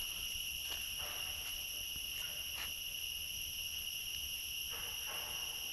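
Insects trilling in one steady, unbroken high-pitched drone, with a few faint soft rustles.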